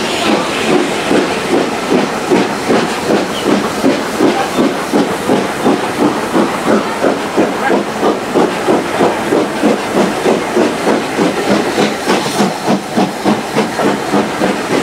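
Steam locomotive working hard at the head of the train, its exhaust beating in a steady rhythm of about three chuffs a second over a constant hiss, heard from an open carriage window.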